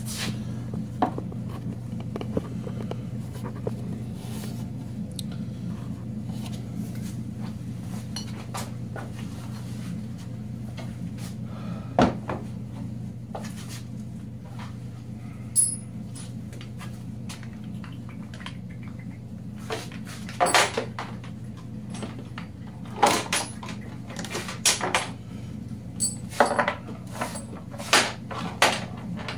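Hard plastic knocks and clicks as a Ski-Doo plastic jerry can is seated on a snowmobile's rear rack and its strap and buckles are fastened. There is one sharp knock about twelve seconds in, and a run of quick clicks near the end. A steady low hum runs underneath.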